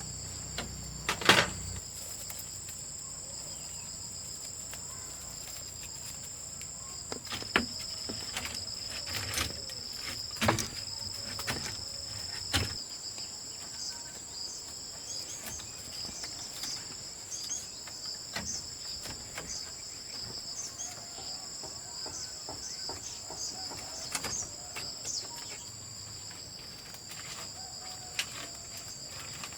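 Steady chorus of insects, a continuous high-pitched drone on two pitches, with scattered knocks and clicks, the loudest about a second in.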